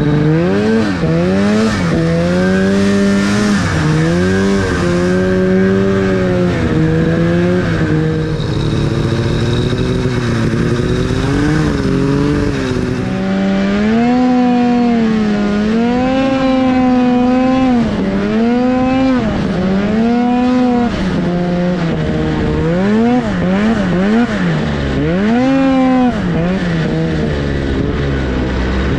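Arctic Cat two-stroke snowmobile engine under way, revving up and easing off again and again as the throttle is worked, its pitch swooping up and falling back. It blips in quicker, sharper rises and falls near the end.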